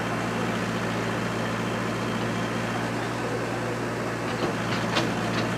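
Diesel engine of heavy earth-moving machinery running steadily at a low, even hum, with a few short sharp clicks near the end.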